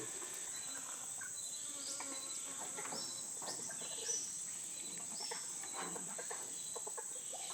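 Steady high-pitched drone of rainforest insects, crickets and cicadas. Several short falling calls, most likely birds, come between about two and five and a half seconds in.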